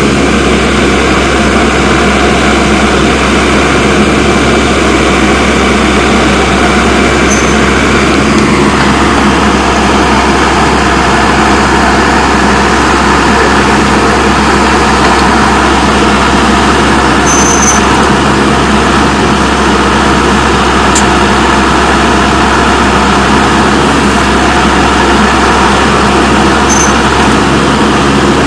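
Komatsu WB146 backhoe loader's diesel engine running steadily while the machine digs, its tone shifting about 8 seconds in. Three brief high-pitched squeaks sound over it.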